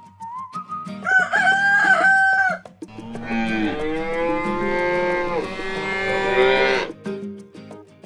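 Cartoon farm-animal calls over background music: a rooster crows about a second in, then cows moo in long drawn-out calls from about three seconds in until near the end.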